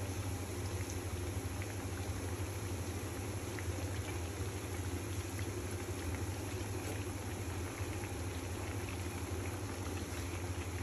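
Hot oil sizzling steadily around lentil-batter fritters deep-frying in a pan, with faint scattered crackles over a low steady hum.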